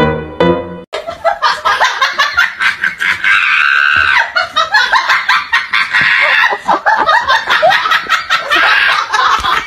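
Piano music for under a second, then cuts off sharply into loud, hearty laughter that goes on in quick, choppy peals.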